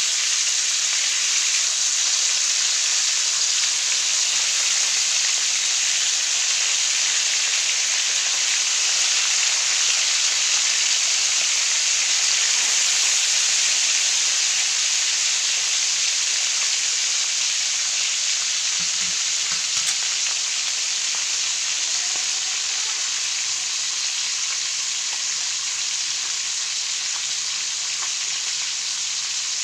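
Whole fish frying in hot oil in a wok: a steady, crackling sizzle that eases a little in the second half.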